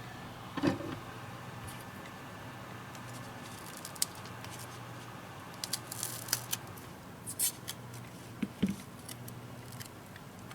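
Scattered light clicks, taps and short scraping sounds of a tablet being worked on with small hand tools, over a steady low hum.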